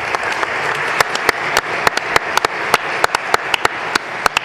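Audience applauding. From about a second in, sharp, close claps from a few clappers stand out above the steady applause.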